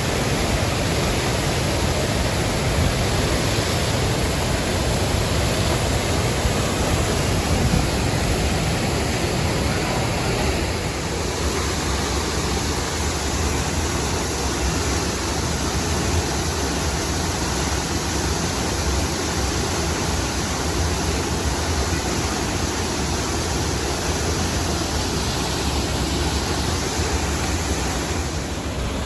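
Düden Waterfall: a loud, steady rush of falling water. About eleven seconds in, the tone shifts toward a deeper rumble.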